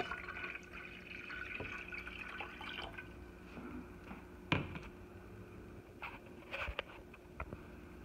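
Water pouring into an Amazon Basics stainless steel electric kettle for about three seconds, then a sharp knock about four and a half seconds in and a few lighter clicks near the end.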